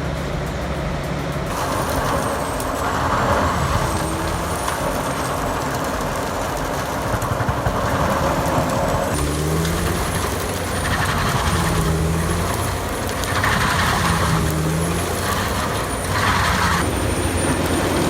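Heavy diesel machinery running steadily, with a faint high whine that wavers up and down and several bursts of hiss, three of them in the second half.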